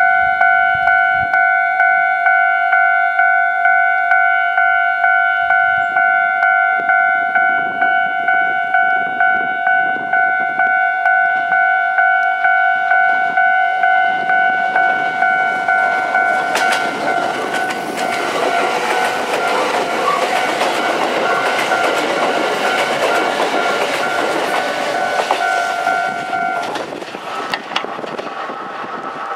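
Japanese level crossing alarm ringing with a pulsing two-tone 'kan-kan' about one and a half times a second. About sixteen seconds in, a Kintetsu 22600-series and 22000-series limited express train passes with a loud rush of wheel and rail noise, and the alarm stops near the end as the train clears.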